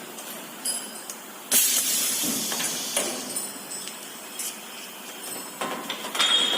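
Pneumatics of a uPVC double-head welding machine: a sudden hiss of compressed air about a second and a half in that fades over a second or so, with clicks and clunks from the mechanism, and another burst of air near the end.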